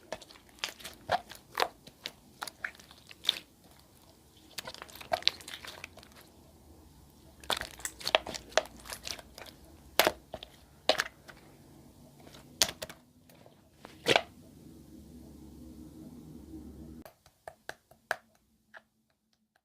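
Clear slime being squished and stretched by hand: irregular sharp pops and clicks with crinkly, crunchy sounds between them. A low background hum stops suddenly about three seconds before the end, leaving only a few faint clicks.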